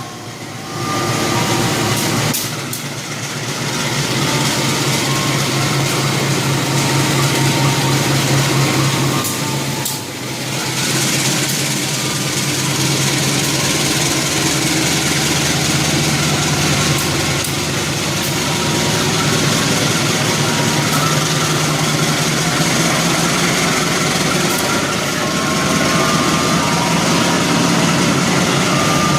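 CC 203 diesel-electric locomotive engine running, a steady low drone with constant mechanical noise and no horn.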